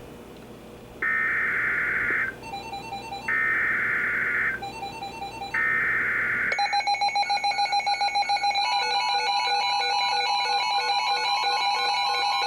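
Three bursts of EAS/SAME digital data tones, each a buzzy warble lasting about a second, with about a second of pause between them. The third cuts off about six and a half seconds in, and background music with a repeating electronic pattern takes over.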